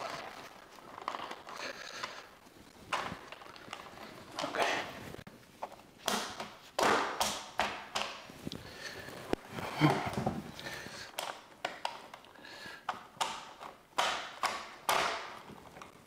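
Hands pushing and tucking cables into a cable organiser: irregular taps, clicks and rustling scrapes of wire and plastic being handled.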